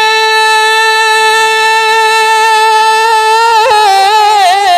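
A male devotional singer holds one long, steady note unaccompanied, his hand cupped to his ear. About three and a half seconds in, the note breaks into wavering, quick melodic ornaments.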